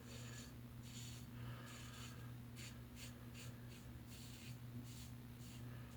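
Double-edge safety razor scraping through shaving lather on stubble in a run of short, irregular strokes, several a second. A faint steady hum runs underneath.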